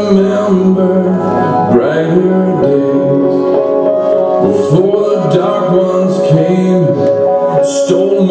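A song with a male singing voice over sustained instrumental accompaniment, the sung phrases rising and falling over long held chords.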